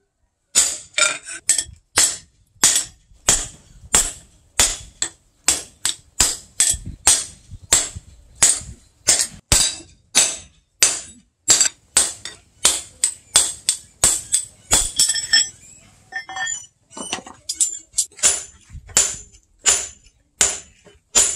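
Hammer blows on hot steel on an anvil, a steady forging rhythm of about one and a half strikes a second, each with a bright metallic ring. A short stretch of lighter, irregular clinks comes about fifteen seconds in before the steady strikes resume.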